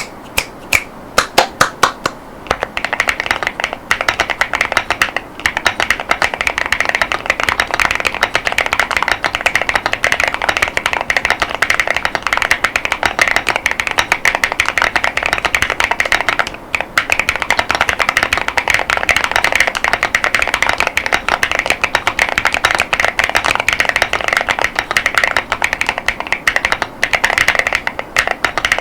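Typing on a mechanical keyboard with Tecsee Neapolitan 40gf tactile switches and PBT OEM-profile keycaps. A few separate, louder keystrokes open it, then fast continuous typing follows with a few brief pauses.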